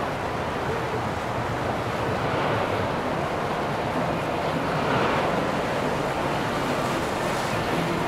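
Steady rush of river water with wind noise, swelling gently a few times, over a faint low hum.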